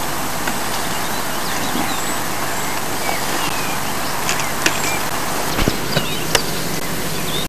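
Steady, even hiss of background noise, with a few short high chirps and small clicks over it.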